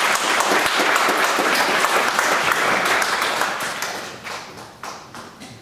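Audience applauding, the dense clapping dying away over the last couple of seconds into a few scattered claps.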